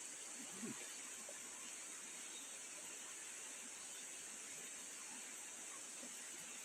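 Steady, high-pitched drone of forest insects, with a brief faint low sound about half a second in.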